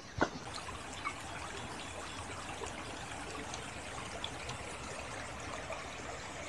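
Small stream trickling steadily, with a single knock just at the start.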